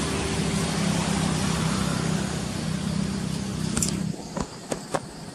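A motor vehicle engine running steadily, cutting off abruptly about four seconds in, followed by a few short sharp clicks.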